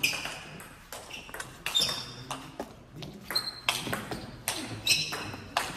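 Table tennis rally: the celluloid-type plastic ball clicks sharply off the rubber-faced paddles and bounces on the table, about every half second. A few short, high squeaks sound among the clicks.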